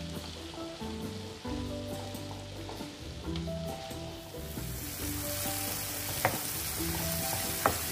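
Tomato and onion masala sizzling in a nonstick kadai as it is stirred with a spatula. The sizzle gets louder about halfway through, and the spatula knocks sharply against the pan twice near the end. Soft background music plays underneath.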